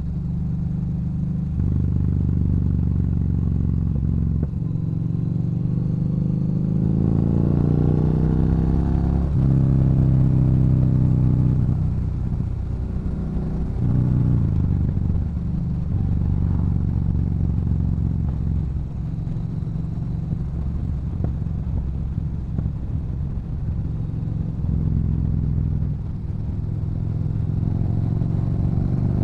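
Yamaha Bolt's air-cooled V-twin running through a Cobra aftermarket exhaust while riding. The engine pulls up in pitch under acceleration about a quarter of the way in, drops at a gear change, then cruises steadily with smaller rises and falls in revs.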